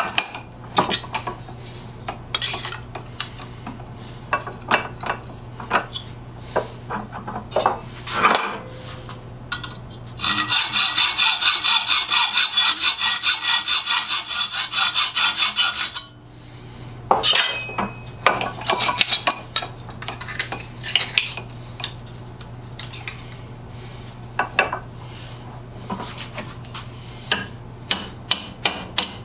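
A hand hacksaw cutting a thin metal strip clamped in a bench vise, with fast, even strokes for about six seconds in the middle. Before and after come scattered clanks and knocks of metal being handled on the vise. Near the end a small hammer gives a quick run of light taps on the metal on the vise jaws.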